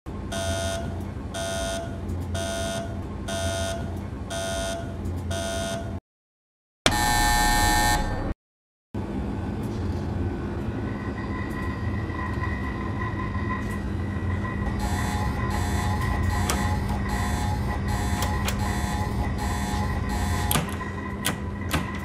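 A run of electronic alarm and warning signals. First a beeping tone repeats about one and a half times a second. After a short gap comes a brief, loud buzzer blast. Then a steady hum carries a continuous high tone with a quicker beeping and clicks over it.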